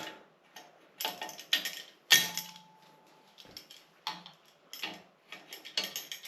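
Metal bicycle parts and tools clinking and knocking during disassembly: a string of separate sharp clinks, one about two seconds in ringing briefly.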